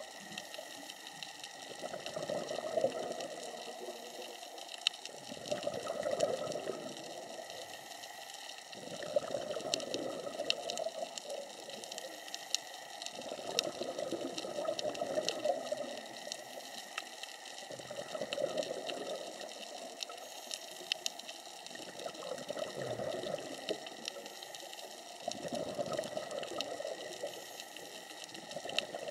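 Underwater scuba breathing: exhaled bubbles from a diver's regulator rise in swells about every four seconds, with a faint crackle of scattered sharp clicks throughout.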